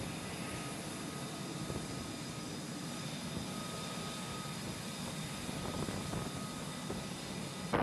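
Jet engine running steadily: an even rush of noise with faint, high, steady tones over it.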